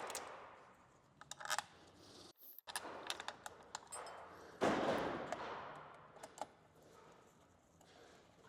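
Light clicks, taps and rattles of chainsaw parts and small screws being handled and fitted, with a louder rustling scrape about five seconds in that fades away.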